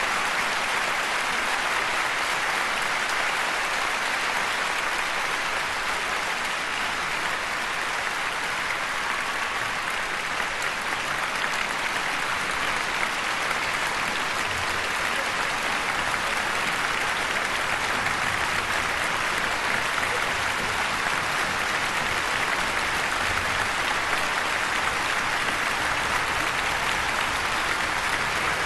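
Large audience applauding steadily, many hands clapping at once with no let-up.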